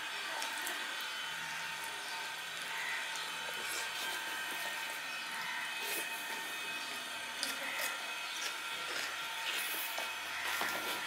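Eating sounds: fingers squishing and mixing rice on a stainless-steel plate, with chewing and small scrapes. Near the end a steel bowl is picked up, giving a few sharp clinks.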